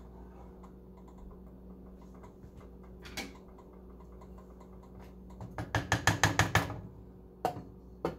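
Utensils clacking against a saucepan on the stove: a run of about eight quick, sharp clacks lasting about a second, then two knocks as a glass lid is set on the pan to let the stew cook. A steady low hum runs underneath.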